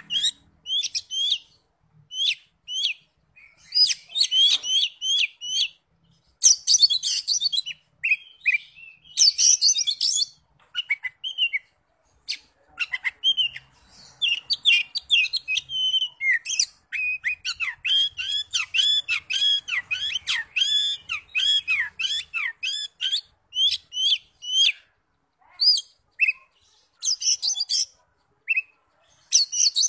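Oriental magpie-robin singing in its cage: a long, varied run of quick, high-pitched chirps and short whistled notes in phrases with brief pauses. There are denser, harsher bursts about six and nine seconds in.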